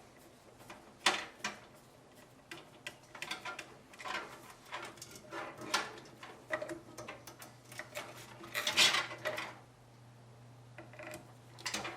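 Small metallic clicks, taps and rattles of a screwdriver and motherboard screws against a steel PC case while a motherboard is screwed down. A louder scrape lasting about a second comes near the nine-second mark.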